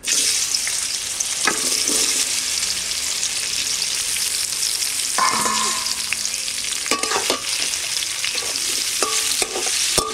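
Boiled amla (Indian gooseberries) going into hot mustard oil in a metal kadai and frying with a steady sizzle that starts suddenly as they go in. A metal spatula scrapes and knocks against the pan now and then as they are stirred.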